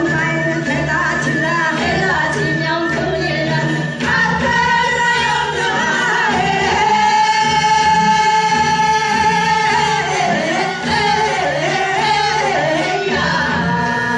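Music with singing, with one long held note through the middle.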